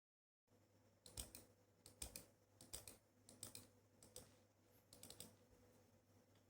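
Computer keyboard keys being typed, faint clicks coming in about six short runs of a few keystrokes each.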